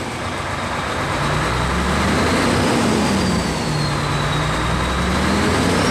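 Mercedes-Benz Actros truck's diesel engine being revved, its pitch climbing, easing off slightly and climbing again, as the newly replaced fuel pump is tested for how the revs follow the throttle.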